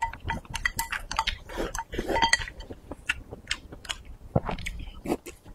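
Close-miked chewing of spicy maocai and rice, a run of irregular wet smacks and crunches, with light clicks of chopsticks against the bowls.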